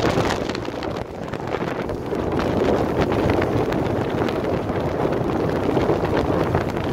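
Storm wind buffeting a phone's microphone: a loud, constant rush of wind noise with uneven gusts.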